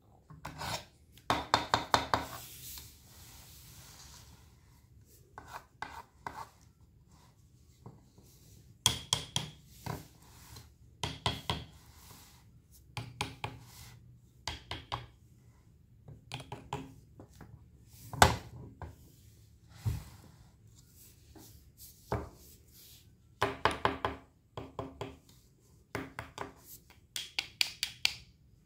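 A knife cutting fresh produce on a cutting board: short runs of quick slicing strokes every few seconds, with one single sharp knock about eighteen seconds in.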